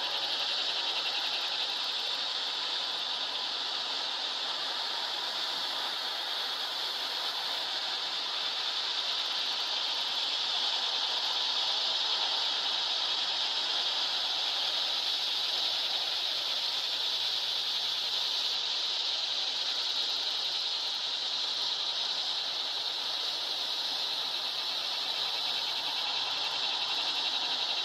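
Summer insect chorus: a steady, high-pitched buzzing hiss that holds level without a break.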